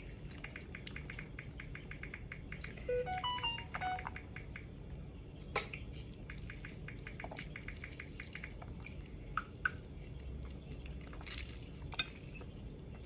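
Lemon half squeezed by hand over raw vegetables, juice dripping onto them in a few small sharp drips and taps. A faint fast ticking and a few short chirp-like tones sound about three seconds in.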